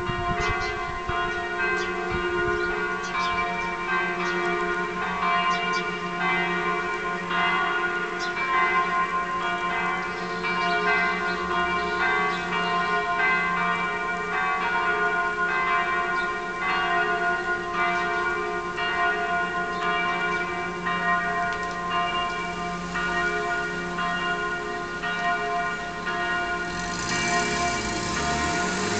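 Bells of the Reunification Cathedral's tower pealing, several bells struck over and over so their tones ring on and overlap throughout. A rushing noise joins near the end.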